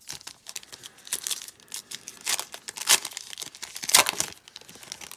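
The foil wrapper of a baseball card pack being torn open and crinkled by hand: irregular sharp crackles, the loudest about three and four seconds in.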